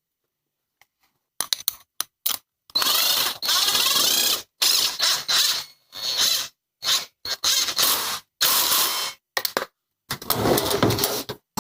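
Electric ratchet with a 12 mm socket running in a series of short bursts, the longest nearly two seconds, driving in the bolts of a motorcycle's rear brake caliper.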